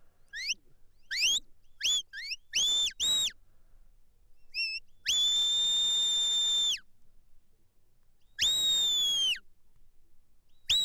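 A sheepdog handler's whistle commands to a working border collie. First comes a quick string of short rising whistles, then a long steady high whistle that falls briefly at its end, and two more long high whistles near the end.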